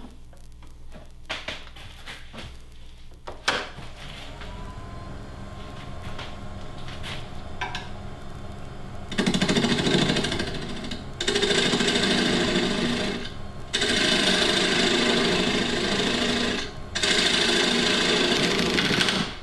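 Wood lathe running quietly at first, then a gouge cutting into the spinning mahogany to hollow out a spoon bowl held in a compression jig. The cuts come as four loud, rasping passes of a few seconds each, starting about halfway in, with short breaks between.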